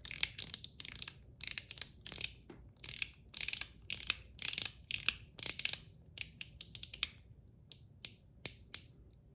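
Blasted zirconium One Pal mechanical slider being slid back and forth, giving short, crisp clicks several times a second, not loud. The clicks come further apart in the last few seconds.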